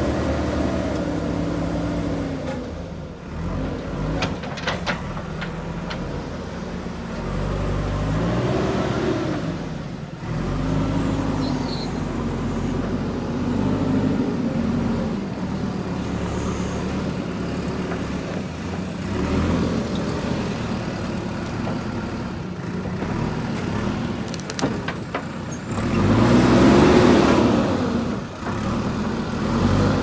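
JCB 3DX Super backhoe loader's diesel engine running under working load, its pitch rising and falling again and again as the machine works, loudest near the end. A few short sharp clicks come in between.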